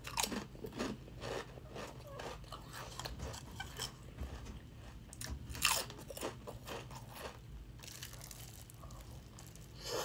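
Crunching and chewing of a Sun Chips multigrain chip, with a quick run of sharp crunches in the first two seconds, softer scattered crunches after and one loud crunch about six seconds in. A bite into a burrito near the end.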